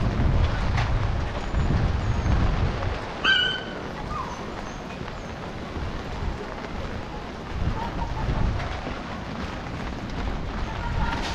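Rainy city street ambience: a low rumble for the first few seconds, one short high-pitched call about three seconds in, then a quieter steady wash of outdoor noise.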